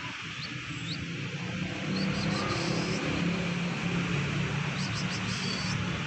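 Short, high chirps of small birds come and go over a steady outdoor hiss. A low rumble grows louder about two seconds in.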